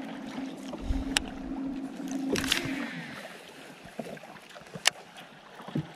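A cast with a baitcasting rod: the reel's spool whirs briefly about two and a half seconds in, over a steady low hum from the boat's motor that stops soon after. A few sharp clicks stand out, one before the cast and one near the end.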